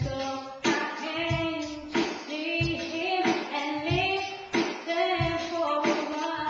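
A woman singing held, gently sliding notes over a strummed guitar accompaniment that keeps a steady beat of about three strokes every two seconds.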